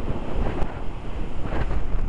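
Strong wind buffeting the microphone in gusts, over the wash of surf breaking on the shore.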